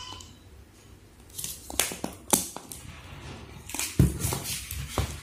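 Hands handling a smartphone's cardboard box and its inserts: a run of short crisp clicks and scrapes, with a couple of duller knocks about four seconds in as a white cardboard insert is lifted out.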